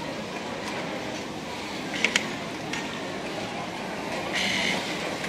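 Steady machine noise of an industrial sewing workshop, with two sharp clicks about two seconds in and a short, louder whirr a little before the end.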